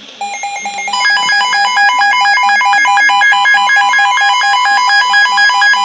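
Emergency alert attention tone: a loud, electronic, ringtone-like warble that steps rapidly back and forth between pitches. It starts just after the opening and grows louder about a second in.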